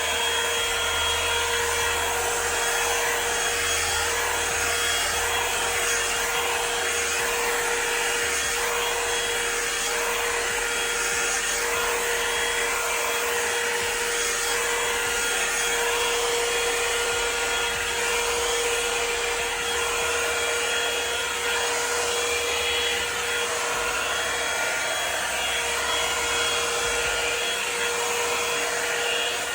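Revlon One-Step hot-air dryer brush running steadily, its motor and fan giving a constant whine over the rush of air.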